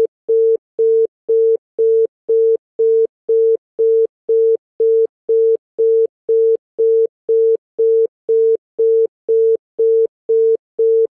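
Bangladeshi telephone congestion tone: one steady pure tone beeping on and off evenly, about two beeps a second, the signal that the network is congested and the call cannot be put through.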